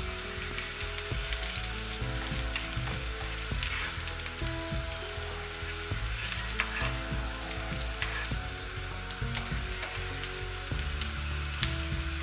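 Potatoes frying in a pan: a steady sizzle, broken now and then by a sharp click of a utensil against the pan.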